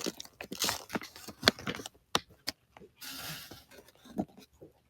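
Scattered small clicks and taps, with a brief soft rustle about three seconds in.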